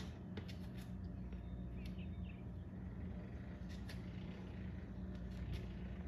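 Outdoor ambience: a steady low mechanical hum, with a few faint bird chirps about two seconds in and scattered light clicks.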